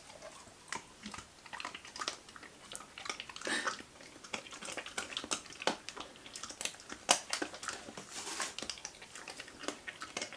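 Dog chewing a dried beef-gullet chew: quick, irregular crunches and clicks.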